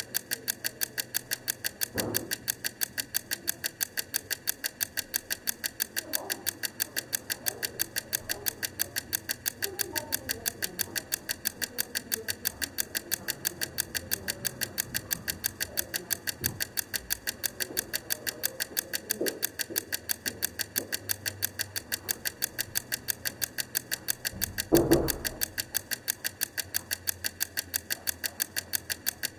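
Wrangler Blue Bell wind-up egg timer running down, its clockwork ticking evenly about three times a second. A single dull thud near the end.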